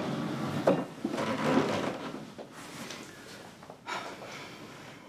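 Wooden scraping and knocks as someone gets up from a table and pushes a chair back, busiest in the first two seconds, with fainter knocks later on.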